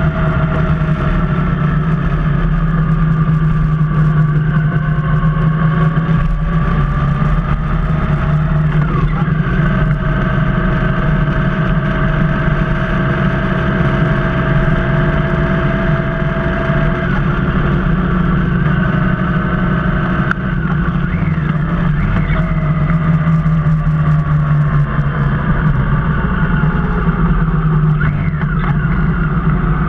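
Motorcycle engine running under way, with wind and road noise. Its pitch shifts up and down a few times as the throttle and speed change.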